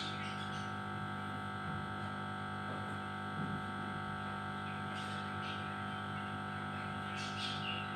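Steady electrical-sounding hum made of several fixed tones, with a couple of faint, short high chirps from a pet parrot about five seconds in and again near the end.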